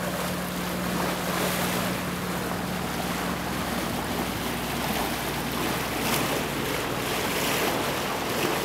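Steady rush of sea water along a sailing yacht's hull as it moves through calm water, with wind buffeting the microphone.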